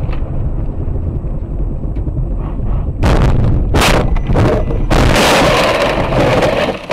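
Steady road and engine noise inside a car, then about three seconds in a loud collision: sharp impacts followed by a couple of seconds of loud crashing noise as the car hits.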